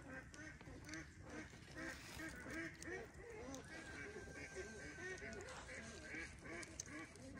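A flock of ducks by a pond calling continuously, with many short quacks overlapping one another.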